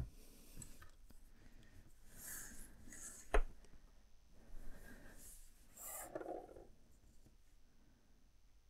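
Faint handling of wooden craft sticks on a wooden tabletop: soft rubbing and sliding, with one sharp tap about three and a half seconds in.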